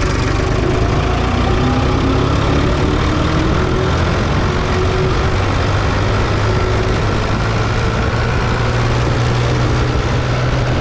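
Ford 3600 tractor's three-cylinder engine running steadily on the road, out through a tall vertical muffler. Its pitch rises over the first few seconds as it picks up speed. The engine has been tuned to cure a 'phat-phat' sputtering problem.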